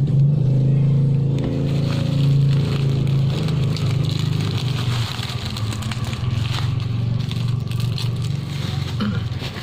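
Plastic packaging rustling and crinkling as a package of bonsai wire is unwrapped, over a steady low motor-like hum.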